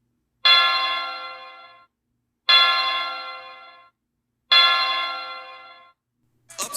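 A bell struck three times, about two seconds apart, each strike starting sharply and ringing out to nothing before the next. Music starts just before the end.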